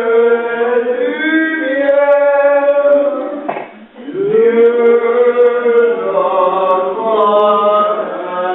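A man singing unaccompanied, holding long drawn-out notes, with a brief break for breath about halfway through.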